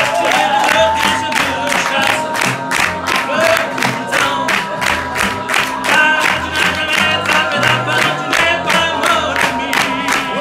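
Live music with a man singing into a microphone over a fast, steady beat of about four beats a second, with crowd noise beneath.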